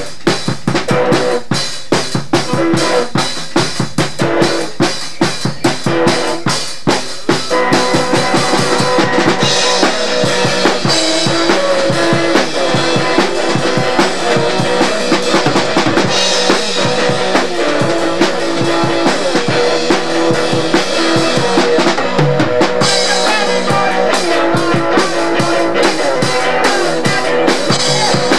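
Loud amateur rock jam on drum kit and guitar. Fast, even drum hits for the first several seconds, then a fuller wash of cymbals and held guitar notes over the beat.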